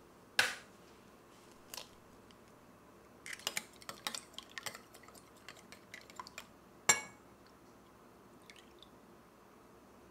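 Eggs being beaten with a metal spoon in a glass bowl: a sharp knock about half a second in, then a few seconds of quick, light clinks of the spoon against the glass, and one sharp clink near seven seconds.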